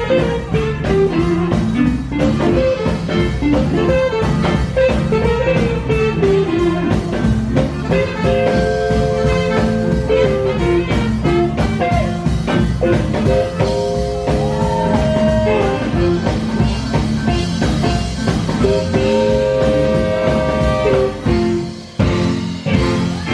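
Live swing and jump-blues band playing an instrumental passage: electric guitar, electric keyboard piano, upright bass and drum kit, with sustained chords held for a couple of seconds at a time. The music dips briefly near the end.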